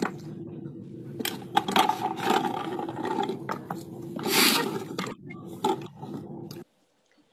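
Two dogs working a homemade PVC-pipe and plastic-bottle puzzle feeder: irregular knocks, clatters and scrapes of plastic parts being pushed and pawed, with a louder scraping clatter about four and a half seconds in, over a steady low outdoor hum. The sound cuts off suddenly near the end.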